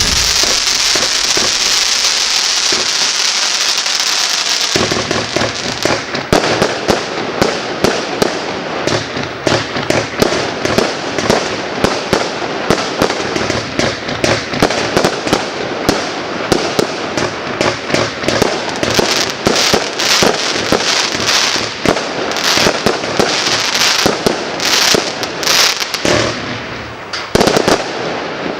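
Klasek CF4920A firework cake going off: a loud sizzling hiss for about the first five seconds, then a rapid run of dozens of pops and crackling bangs that goes on until near the end.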